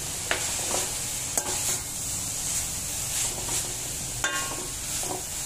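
A perforated metal spatula stirring and scraping shredded cabbage and mixed vegetables around a hot pan, with short scrapes and knocks of metal on the pan over a steady oil sizzle. The vegetables are being stir-fried.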